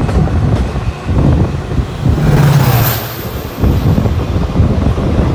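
Wind and running noise from a moving passenger train as an oncoming diesel-hauled train passes on the next track. About two seconds in, the locomotive's engine drone swells and goes by, followed by the rumble and rattle of its coaches passing close alongside.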